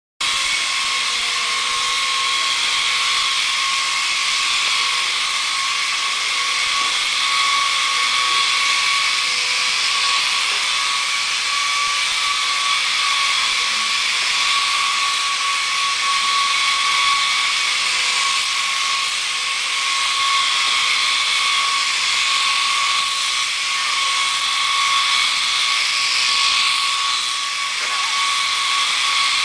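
Small electric Silverlit RC toy helicopter in flight: a steady high-pitched whine from its electric motors and spinning rotor.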